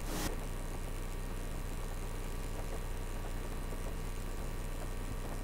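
Steady low electrical hum with a faint hiss of room tone, opened by a brief burst of noise right at the start.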